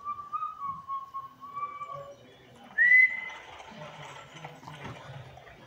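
Whistling: a thin, wavering tone for about two seconds, then a short, loud whistle that rises and holds briefly about three seconds in.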